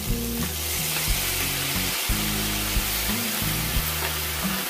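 Minced pork and chilli curry paste sizzling steadily in a hot stainless steel frying pan as it is stir-fried, with a light spatula click against the pan about once a second.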